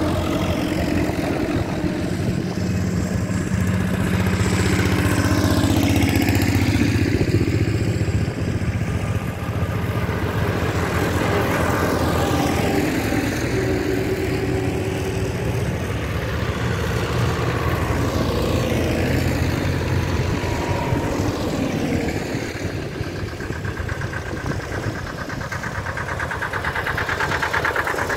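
Old farm tractors' engines running as the tractors drive past one after another, each engine swelling as it comes close and fading as it moves off. It is loud again near the end as a green Deutz tractor passes close.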